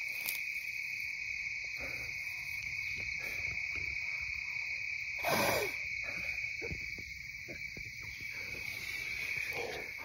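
Insects trilling steadily on one high note, with a brief whoosh about five seconds in.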